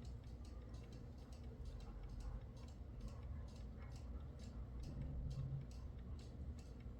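Antique Junghans mechanical alarm clock ticking with steady, evenly spaced ticks over a low background hum.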